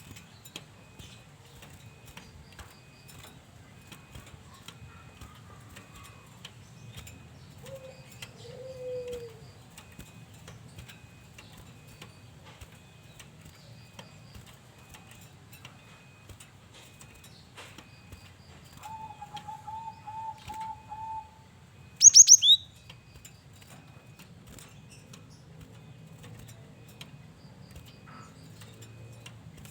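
A male cinereous tit (gelatik batu) gives one brief, loud call of two or three sharp, high, falling notes about two-thirds of the way in. Before it there are quieter low notes from another bird: a single falling note early on, and a quick run of about eight notes shortly before the tit calls.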